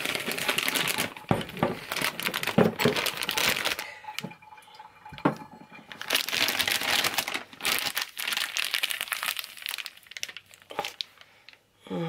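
Plastic piping bag crinkling and rustling as it is handled, in spells that drop off briefly about four seconds in and again near the end.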